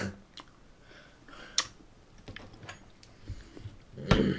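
Scattered light clicks and taps, the sharpest about a second and a half in, with a louder thump near the end.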